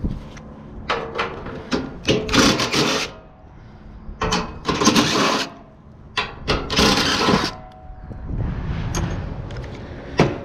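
A power tool run in three short bursts of about a second each on a stuck, rusted screw of an HVAC blower motor, with sharp metal clicks and knocks between the bursts.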